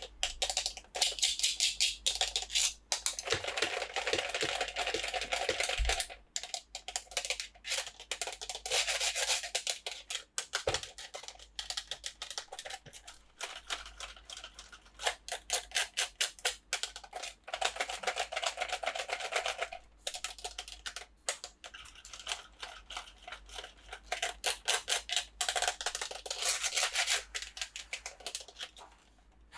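Plastic toy packaging and figures being handled close to the microphone: rapid rubbing and scraping with dense runs of small clicks, in patches with brief pauses.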